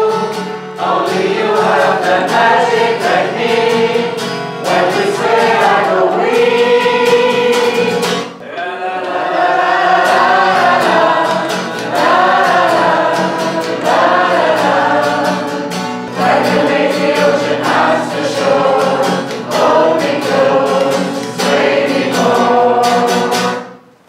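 A group of men and women singing a familiar song together to an acoustic guitar. The singing dips briefly about eight seconds in and cuts off suddenly at the end.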